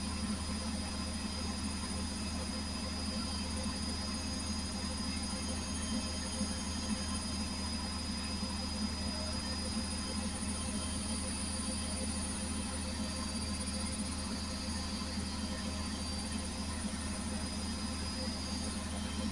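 Beko washing machine running with a steady, unchanging drone and a constant high-pitched motor whine.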